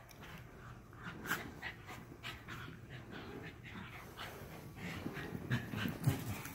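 Two long-haired dachshunds play-fighting: panting and scuffling, with short, louder dog sounds near the end.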